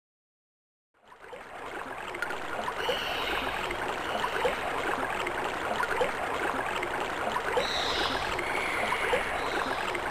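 Sampled water or sea-wash noise from an Amiga demo's soundtrack, fading in from silence about a second in and then holding steady. A few short higher tones rise above it now and then.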